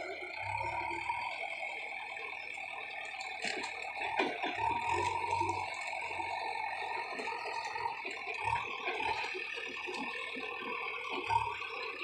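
JCB 3DX backhoe loader's diesel engine running under load with a steady whine as the loaded front bucket is raised on its hydraulics.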